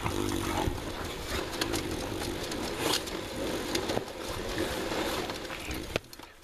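Dog running on a Dogtrotter USA dog treadmill: the running deck and rollers turn steadily under its paws, with many quick clicks, until the sound drops away near the end.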